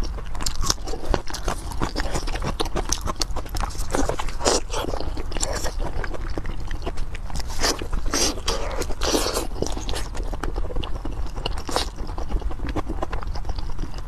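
Close-miked chewing and biting of braised pork: a steady run of quick wet clicks and mouth smacks, with louder bites about four, eight and twelve seconds in.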